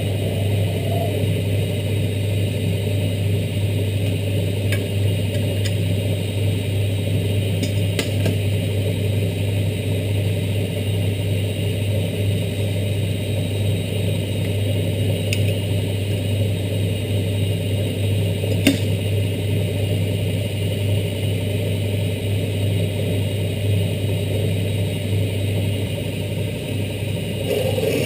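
Metal lathe running steadily, its electric motor giving a low hum, with a few short sharp ticks. The lathe is set up with an indexing fixture to drill around a sprocket blank.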